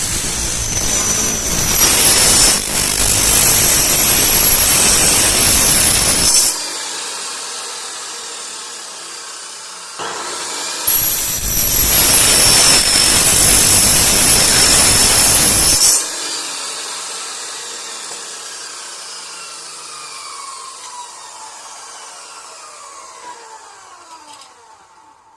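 Electric saw with an HSS blade cutting through metal twice, each cut a loud high screech lasting about five or six seconds. Between the cuts the motor runs on more quietly, and after the second cut it winds down with a slowly falling whine.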